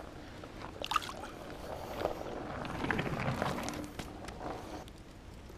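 Small water splashes and handling noises as a small pike is released back into the water, with a sharp click about a second in.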